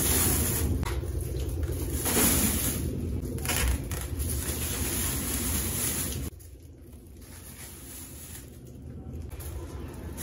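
Clear plastic bags packed with sachets of drinking water crinkling and sloshing as they are carried and set down. The sound drops off suddenly about six seconds in.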